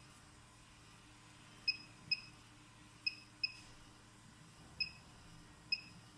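Automatic measured-cutting machine with rotary knife clicking through its cutting cycle: six short, sharp ringing clicks at uneven intervals, two of them in quick pairs, over a faint steady hum.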